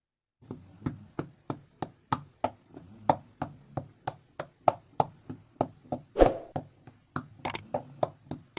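A steady run of sharp clicks or taps, about three a second, with one heavier knock about six seconds in.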